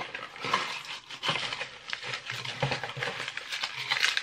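Tissue paper and a small cardboard box handled and unwrapped by hand: a continuous irregular crinkling and rustling with small clicks.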